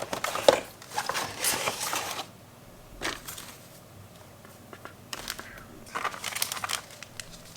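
Rustling and crackling of plastic packaging and kit parts being handled while searching through a screen-protector installation kit, in irregular bursts, busiest at the start and again near the end.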